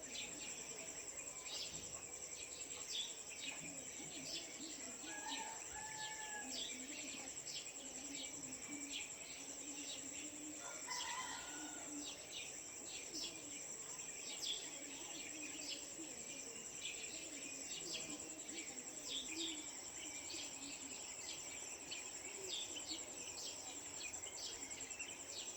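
Early-morning village ambience: a steady high-pitched insect drone, with many small birds chirping and calling over it throughout.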